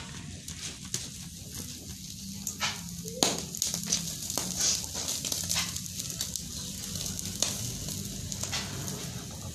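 Squid sizzling on a wire grill over glowing coals: a steady high hiss with scattered crackles and sharp pops, the loudest about three seconds in.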